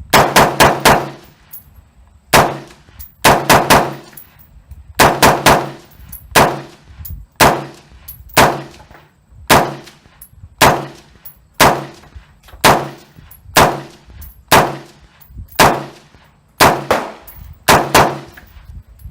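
AR-15 semi-automatic rifle firing steadily, in single shots and quick strings of two to four, about two dozen shots in all. Each shot has a short ringing, echoing tail.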